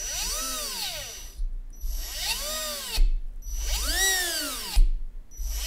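Freshly rebuilt and broken-in CrawlMaster Sport brushed RC motor, run by an ESC from a throttle knob, spins up and back down three times, each a whine that rises and then falls in pitch, with a fourth spin-up starting near the end. It is a check that the motor turns forwards and backwards freely without the brushes clicking, and it passes: the motor seems just right.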